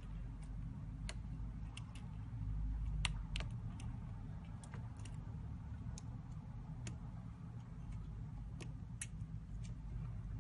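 Light, irregular clicks and ticks of small repair tools on a phone's metal and plastic parts during disassembly, over a low steady hum.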